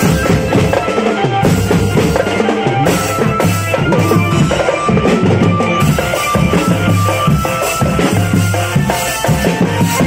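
Live drum band playing: marching bass drums and snare drums beating a steady rhythm under a held melody line.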